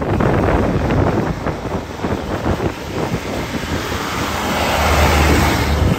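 Two HMT 5911 tractors' diesel engines chugging as they drive along the road, growing louder as they come close about five seconds in, with wind on the microphone.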